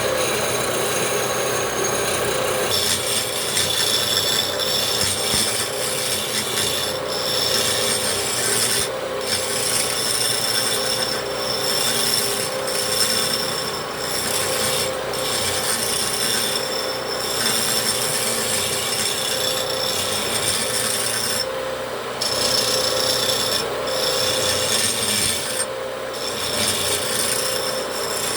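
Wood lathe running with a steady motor hum while a hand tool scrapes against the spinning wooden table-leg blank, the scraping breaking off briefly every few seconds as the tool is lifted and set again.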